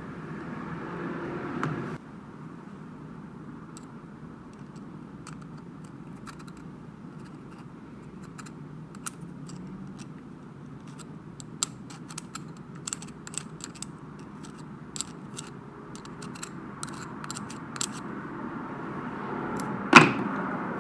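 Small, irregular metallic clicks and scrapes of a slim screwdriver blade working grease into the open head of an old Snap-on GM-70M ratchet, growing busier in the second half, with one sharper knock near the end, over a steady background hum.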